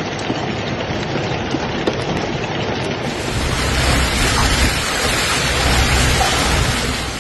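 Heavy rain and hail pelting down: a dense, steady hiss with scattered sharp ticks. A low rumble builds about three seconds in.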